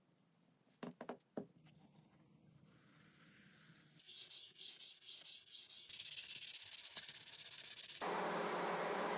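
A few sharp clicks, then quick rubbing or sanding strokes during hand restoration work, getting louder about four seconds in and turning into a steadier hiss near the end.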